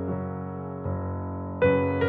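Background piano music, slow and held, with a new note struck a little under a second in and a louder one near the end.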